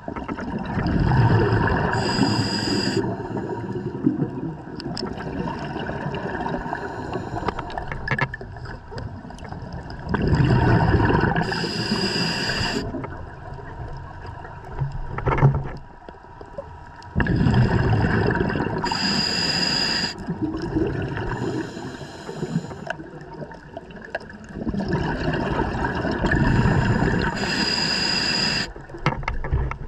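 Scuba diver breathing through a regulator underwater: four slow breaths about seven seconds apart, each a long bubbling rumble of exhaust with a brief hiss near its end. A single sharp click sounds about fifteen seconds in.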